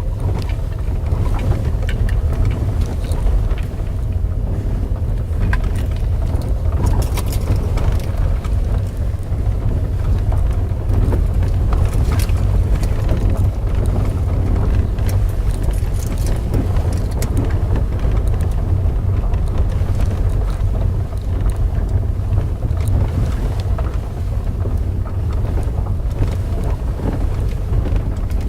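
VW Polo Sedan heard from inside the cabin on a rough, stony road: a steady low rumble from the tyres and body, with frequent short knocks and a rubbery-plastic rattle that the owner presumes comes from the automatic transmission mount.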